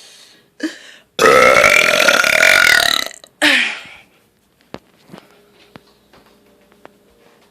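A woman's long, loud burp lasting about two seconds, starting about a second in, followed by a shorter sound that falls in pitch.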